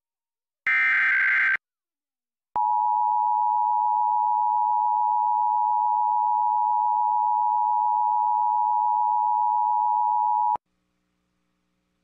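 Emergency Alert System tones: the end of the digital SAME header, a buzzy data burst of about a second, then about a second later the EAS two-tone attention signal (853 and 960 Hz together). The tone holds steady for about eight seconds and cuts off abruptly.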